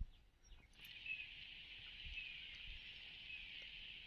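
Faint, steady insect buzzing that sets in about a second in, with a short falling chirp about once a second.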